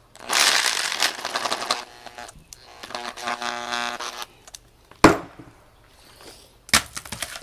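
Power tools being handled on a workbench: a rattling clatter, a brief buzzing tone, then a single sharp knock about five seconds in and a few more knocks near the end.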